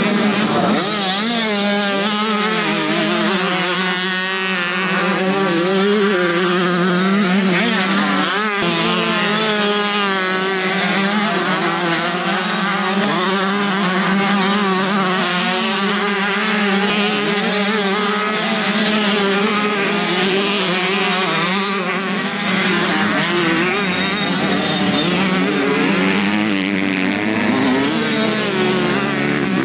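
Several motocross bikes racing, their engines revving up and down so that the pitch constantly rises and falls, with more than one engine heard at once.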